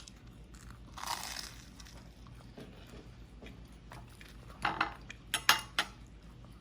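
Breakfast-table sounds: a short rustle about a second in, then a cluster of sharp clicks and clinks near the end, from tableware and eating.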